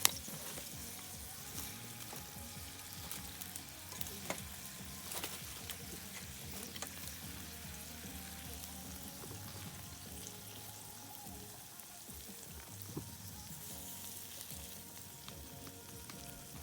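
Food sizzling as it cooks, with scattered small pops and crackles.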